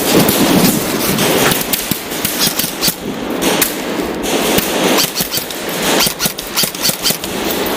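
Airsoft guns firing in quick strings of sharp shots over a steady noise. The shots come thickest from about a second and a half in.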